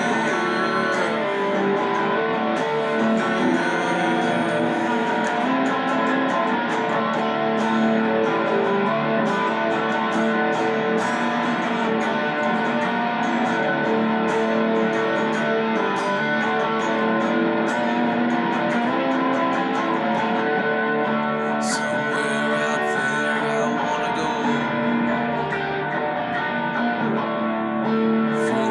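Electric guitar strummed and picked in a steady rhythm, chords ringing on with regular pick strokes; the strumming lets up for a moment about two-thirds of the way through.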